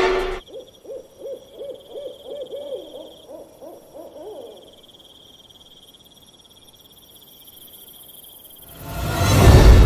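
Owl hooting in a quick series of about a dozen calls, rising slightly in pitch, over a steady high insect trill. Music swells in near the end.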